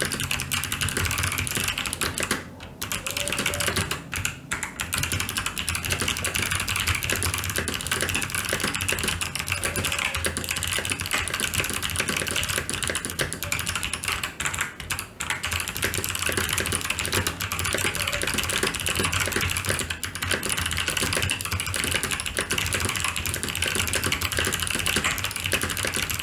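Fast typing at about 112 words a minute on a TVS Gold Pro mechanical keyboard with clicky Kailh Box White switches: a dense, continuous stream of key clicks. It breaks off briefly about two and a half, four and fifteen seconds in.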